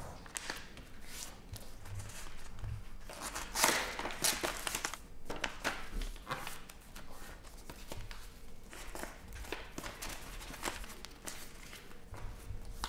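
A sheet of paper being folded by hand on a wooden table: repeated rustling and crinkling strokes as the creases are pressed and smoothed, with a few soft thuds of hands on the tabletop. The loudest rustle comes about three and a half seconds in.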